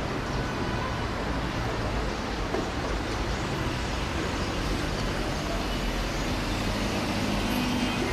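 Steady road traffic noise, an even rumble with no distinct events.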